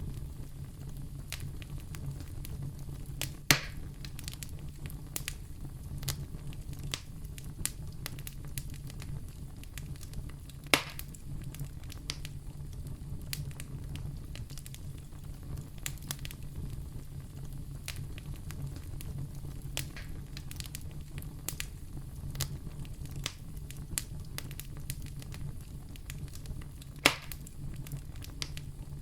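Wood fire burning in a fireplace: a steady low rumble with frequent small crackles, and three louder pops from the burning logs.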